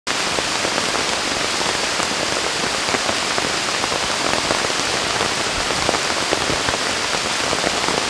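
Steady heavy rain falling on rainforest foliage: an even hiss dotted with many separate drop strikes.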